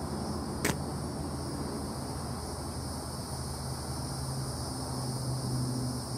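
Steady background noise: an even high hiss over a low hum, with a single sharp click under a second in.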